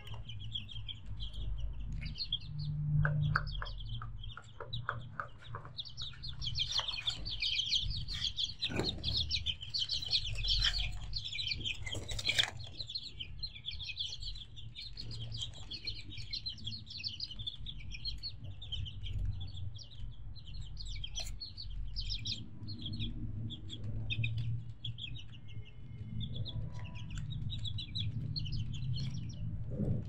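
A crowd of chicks peeping: many overlapping short, high-pitched cheeps, thickest in the first half, over a low steady rumble.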